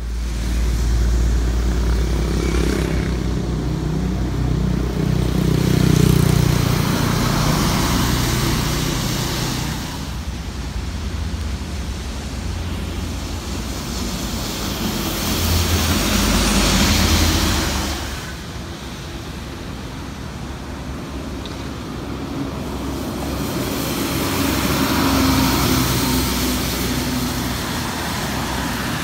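Highway traffic on a wet road, with coaches, cars and trucks driving past: a steady low engine rumble and a tyre hiss on the wet surface. The hiss swells and fades several times as vehicles go by.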